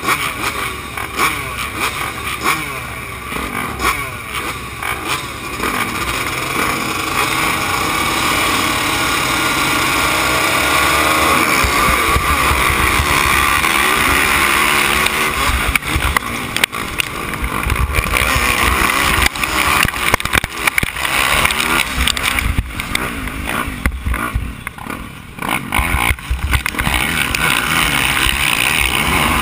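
A field of motocross bikes revving at the starting gate, then the race start. After about ten seconds the nearby dirt bike's engine runs hard at high revs among the pack, with heavy rumble on the microphone. It eases off briefly near the end before pulling again.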